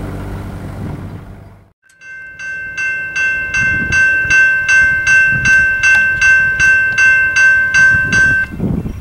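Railroad level-crossing bell ringing in a fast, even rhythm of about three strikes a second while the crossing gates come down, warning of an approaching train. It starts about two seconds in and stops suddenly near the end.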